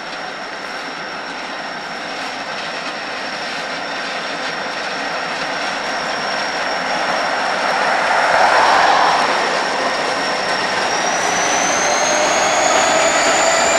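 EMD SD45-2 diesel locomotives, each with a turbocharged 20-cylinder engine, running under power and growing louder as they approach and pass close by. A high steady whine rises in pitch about three-quarters of the way through.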